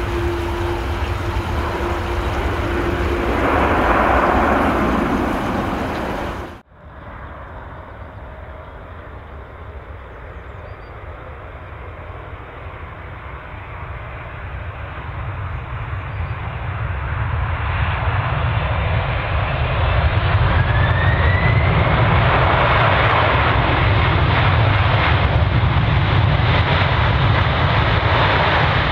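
A departing Boeing 737's jet engines at takeoff thrust as it climbs away, cut off abruptly about six and a half seconds in. Then a Boeing 747 freighter's four jet engines on its takeoff roll, faint at first and growing steadily louder, with a rising whine, until they are loud for the last third.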